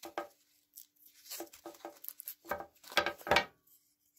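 Sawn wooden fretwork pieces being handled and shifted about on a scroll saw table: scattered rustling and light knocks, with the loudest knocks about three seconds in.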